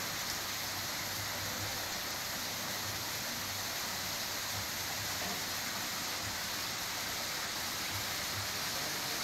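Steady rush of running water in a koi pond, an even hiss that does not change.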